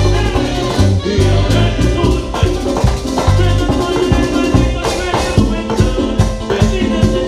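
Live band playing an instrumental passage of a Latin dance song, with percussion on a steady beat and a prominent bass line.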